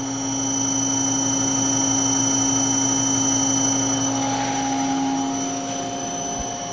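PM-727M mill's three-phase spindle motor running steadily at low speed on a VFD at about 13 Hz: a constant hum with a high whine. It is a little louder in the first few seconds, and a fainter higher tone joins about four seconds in.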